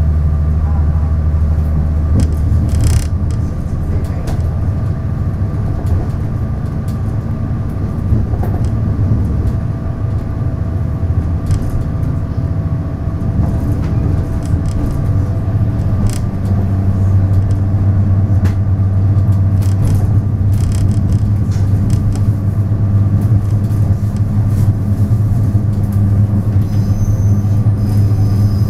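Taiwan Railways DR3000 diesel multiple unit running, its diesel engine giving a steady low drone with occasional short knocks. About halfway through, the engine note steps up and grows stronger.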